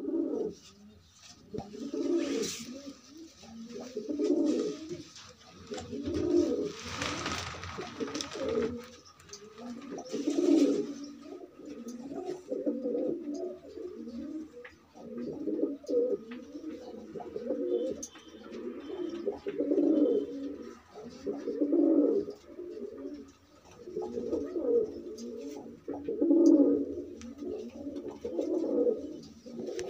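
Domestic pigeons cooing over and over, their low rolling coos coming in phrases a second or two apart. A brief rustling noise comes about seven seconds in.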